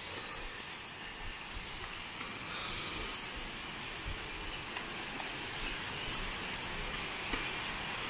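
High-pitched forest insect chorus, swelling and fading several times over a steady hiss.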